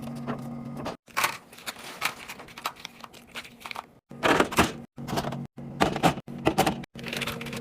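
Clattering and knocking of plastic containers and packaging being handled and set down, in short clips cut off abruptly, over a steady low hum.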